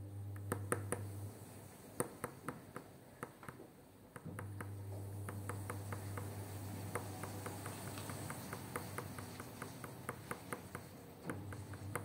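Light clicking and tapping from a fingertip working a round plastic magnet against a metal fridge door, a few scattered clicks at first and then a quick run of about four or five a second. A low steady hum runs underneath, dropping out for a few seconds near the start.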